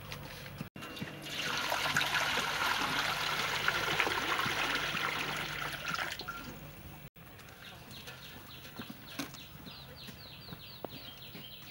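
Water poured from a metal can into a large iron wok, splashing steadily for about five seconds before it stops. Near the end a rapid series of short high chirps is heard.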